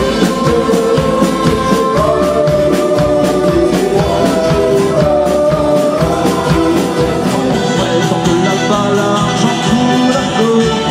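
A pop-rock band playing a song, with a sung melody over a steady drum beat.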